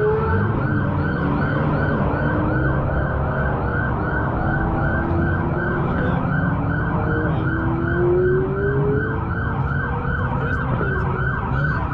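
Police siren on rapid yelp, sweeping up and down about four times a second without a break, over the low running of car engines.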